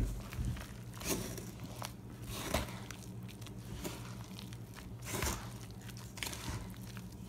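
Irregular knocks and scrapes of cake batter being mixed by hand in a bowl, a few seconds apart, over a steady low hum.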